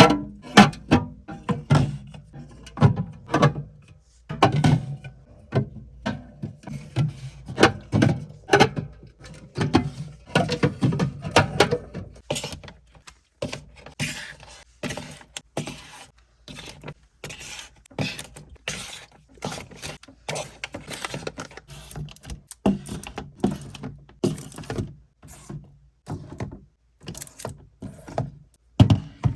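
Lo-fi background music with plucked guitar notes, with many short thunks through it.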